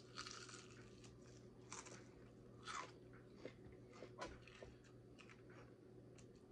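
Faint crunching and chewing of crispy fried chicken: a bite into a fried chicken leg, then a few scattered short crunches as it is chewed.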